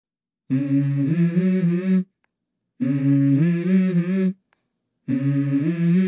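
Opening of a song: a voice hums the same short melodic phrase three times, each about a second and a half long, with silent gaps between.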